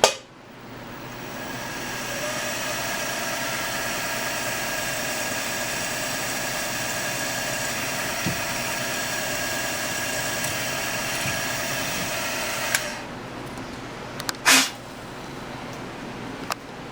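Milling machine spindle motor spinning up over about two seconds, running steadily for about ten seconds, then switching off. A single sharp knock follows a couple of seconds later.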